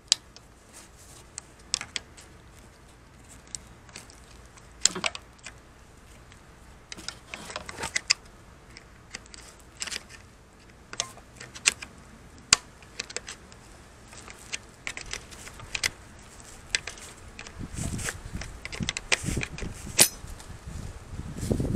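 Scattered sharp metallic clicks and clinks of a screwdriver and small screws being worked out of a radiator and fan assembly. They come more thickly near the end, as the parts are handled.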